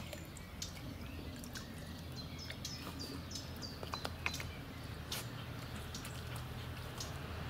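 Small splashes and drips of water as a West Highland White Terrier wades and drinks at the edge of a stream. A small bird gives a quick run of high, falling chirps about two and a half seconds in.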